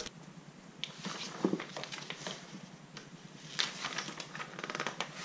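Plastic sleeve and paper booklet being handled: scattered light rustling and crinkling with small clicks, busiest about three and a half seconds in as the booklet is opened.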